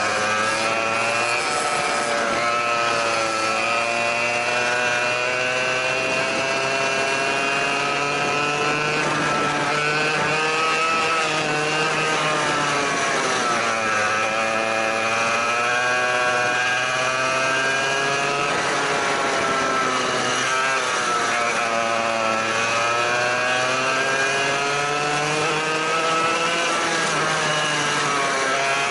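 Go-kart engine at full throttle heard from on board, its note climbing steadily as the kart accelerates and dropping sharply when it lifts and brakes for corners, twice in the middle stretch, before climbing again.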